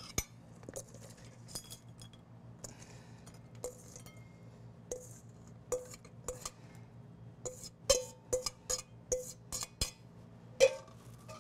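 A metal utensil clinking and scraping against a stainless steel mixing bowl and plate as salad is worked out of the bowl. It makes a series of short clinks, many with a brief ring, coming closer together in the second half and loudest near the end.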